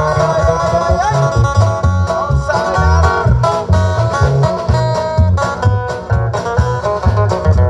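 Live band playing a dance tune on electric and acoustic guitars, electric bass and drums, with a steady pulsing bass line and sustained guitar notes that bend in pitch.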